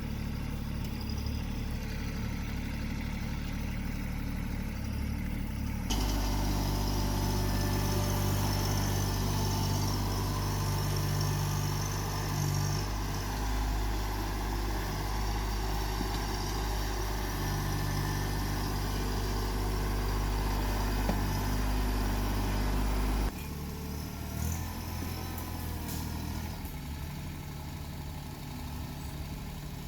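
TYM 264 compact tractor's diesel engine running steadily. About six seconds in it switches abruptly to a louder, harder-working run, and near the end it drops back just as suddenly to the quieter running.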